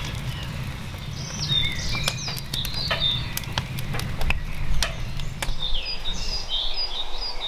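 Oak logs crackling and snapping in a burn barrel, with many sharp pops over a steady low rumble. Birds chirp and trill in the background.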